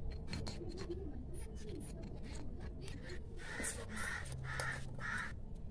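Faint light clicks and taps of small utensils against tiny steel dishes. A little past halfway, four short sounds follow in quick succession.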